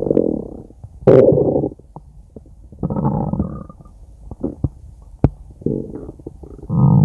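A person's stomach growling: about five separate rumbles, each under a second long, with the loudest about a second in. A few short sharp pops fall between them.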